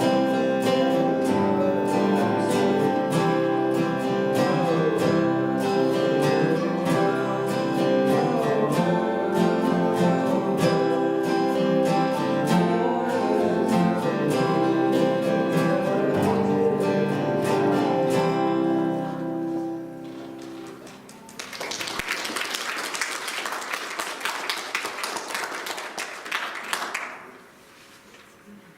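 A live guitar piece played through to its end about twenty seconds in, followed by several seconds of audience applause.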